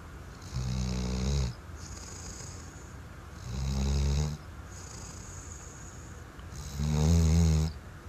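A sleeping Weimaraner snoring: three loud, low snores about three seconds apart, each lasting about a second, with a softer breathy hiss between them.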